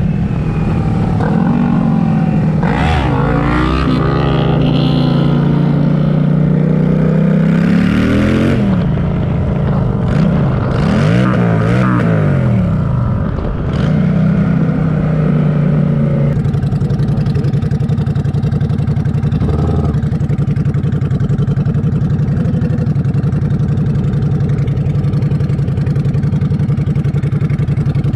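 Honda Shadow VLX 600's V-twin engine, freshly rejetted with a jet kit, pulling under way. Its pitch rises and drops several times in the first half as it revs up and shifts, then it settles into a steady run.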